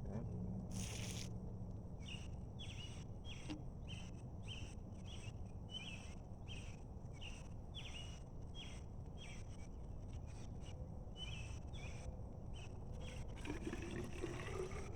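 Outdoor insect chorus: a steady high-pitched buzz with a short chirp repeated about one and a half times a second, over a low rumble. A brief hiss comes about a second in.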